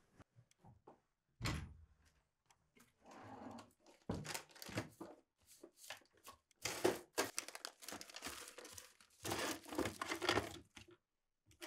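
Someone rummaging through a wooden wardrobe drawer: objects rustling, crinkling and knocking as they are shifted about, in irregular bursts, with a single louder thunk about a second and a half in.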